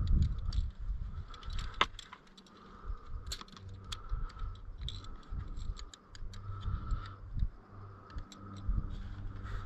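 Climbing carabiners and belay device clinking and clicking as hands work the rope and gear at the harness, scattered irregular metal clicks over a low rumble.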